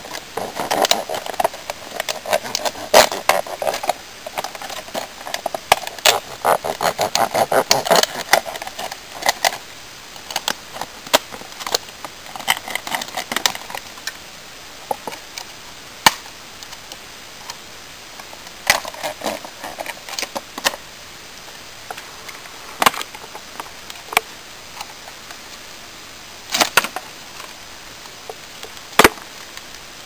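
Thin plastic packaging crackling and crinkling as it is cut with a pocket knife and pulled apart. The crackling is dense for about the first ten seconds, then it thins to scattered sharp snaps and clicks.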